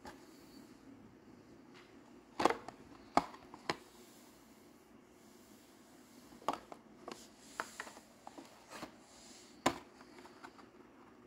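Hot Wheels blister card, a cardboard backing with a plastic bubble, being handled and turned over in the hands: a scatter of short, sharp clicks and crinkles, several close together a couple of seconds in and another near the end.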